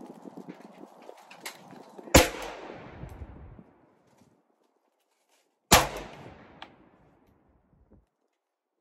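Two gunshots about three and a half seconds apart, each followed by a long echo that fades over a second or more.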